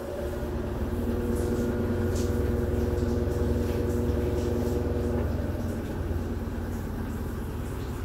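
Electrolux 12 kg top-loading washing machine on its spin cycle, spin-drying a load of sneakers: a steady low rumble with a motor hum over it. The hum fades out about five seconds in, leaving the rumble.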